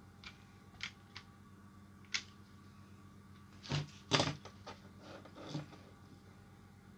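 A few light plastic clicks as a DIP chip is worked in a plastic IC lead-straightening tool, then a louder clatter of knocks about four seconds in as the tool is put down on the cutting mat and the circuit board is handled, with a last knock over a second later.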